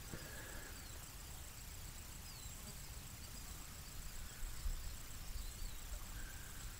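Quiet outdoor ambience: a faint low wind rumble on the microphone, a few faint high bird chirps, and a faint steady high whine.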